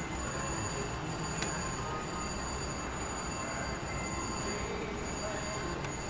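Casino floor din of slot machines: a steady wash of machine noise with high electronic tones, and two faint sharp clicks, one about a second and a half in and one near the end.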